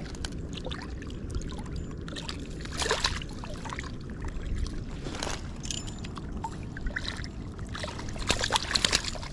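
Water sloshing and splashing, with a few louder splashes about three seconds in and again near the end, over a steady low rumble.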